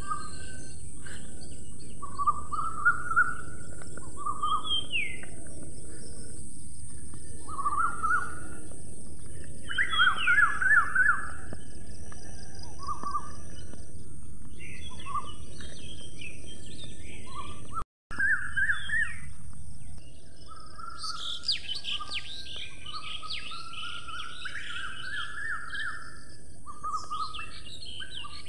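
Several songbirds chirping and calling in short, quick phrases, busier in the second half, over a steady high hiss. The sound cuts out for an instant about two-thirds of the way through.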